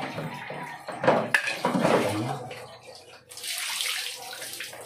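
Water pouring and splashing over a puppy being bathed, heaviest in the second half.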